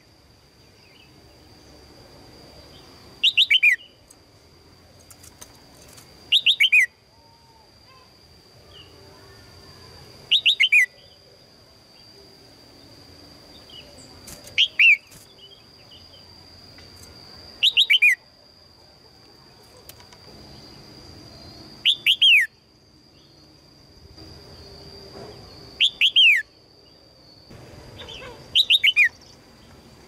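Red-whiskered bulbul giving short, sharp chattering calls, eight times, about every three to four seconds. Each call is a quick run of two or three falling notes. A steady high thin whine runs underneath.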